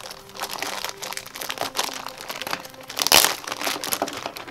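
Thin clear plastic bag of toy pieces crinkling and crackling as hands handle it, with the loudest crackle about three seconds in.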